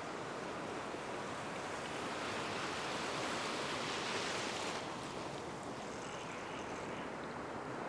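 Small waves breaking and washing through shallow surf, swelling to a louder rush a couple of seconds in and easing off just before the five-second mark.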